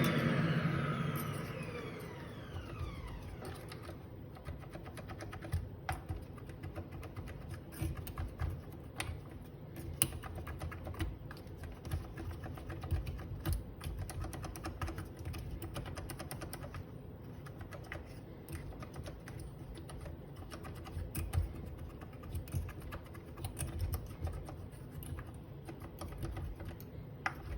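A small electric motor spinning down with falling pitch fades out over the first couple of seconds. Then come irregular light clicks and scratches as a metal hook picks and scrapes caked coffee grounds out from between the blades of the Breville Smart grinder's burr.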